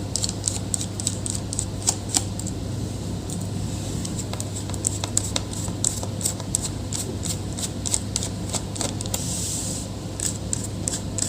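Small precision screwdriver turning out the tiny screws of a laptop's bottom cover: a run of quick, irregular metallic clicks and scrapes, over a steady low hum.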